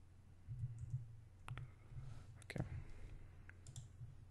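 A few faint, sharp computer mouse clicks spread across a few seconds, over a low background hum.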